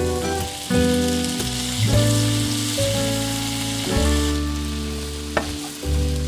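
Food sizzling as it is stir-fried in a hot pan, with acoustic guitar background music. The sizzle drops away a little after four seconds in, leaving the music.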